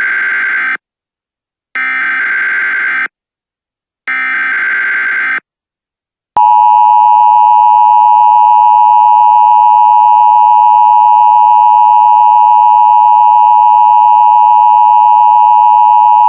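Emergency Alert System tones: the tail of one short burst of data tones and two more, each about a second long with a second of silence between, then the loud, steady two-tone attention signal held for about ten seconds, cutting off abruptly near the end. This is the header and attention signal that open an emergency alert broadcast.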